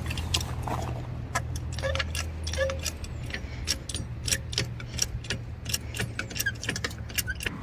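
A 2-ton hydraulic floor jack being worked on gravel: a stream of irregular metallic clicks and rattles. A steady low hum runs under them and stops abruptly near the end.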